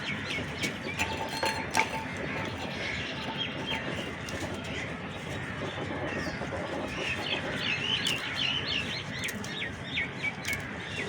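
Birds chirping repeatedly, busiest about seven to ten seconds in, over a steady background hiss with a few sharp clicks.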